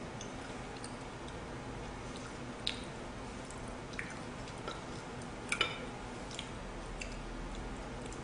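Chopsticks and spoon clicking lightly against plate and bowl a few times, the loudest a quick double click about five and a half seconds in, with quiet chewing in between.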